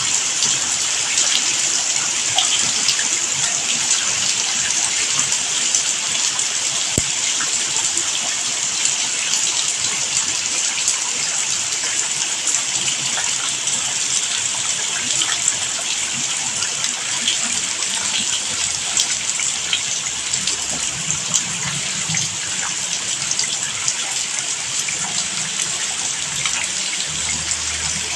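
Steady rain: an even hiss dotted with many small drop ticks, with a faint low hum coming in about twenty seconds in.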